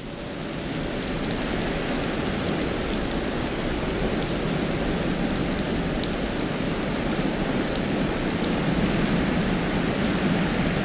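Wind blowing with sleet, a dense steady rush with scattered small ticks of sleet pellets striking. It fades in over the first second or two, then holds steady.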